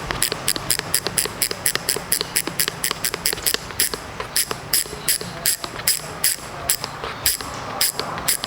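Ragusa XM500 four-pawl rear hub freewheeling: a rapid run of sharp metallic ratchet clicks, about five a second, that slow slightly near the end.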